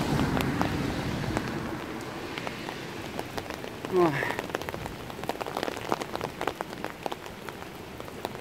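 Steady rain, with many separate drops tapping on an umbrella close overhead. It is heavier at first and eases over the first couple of seconds. There is a short voice sound about four seconds in.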